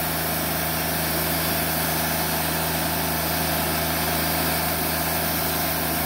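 Diesel engine of a portable bandsaw mill running steadily at a constant speed.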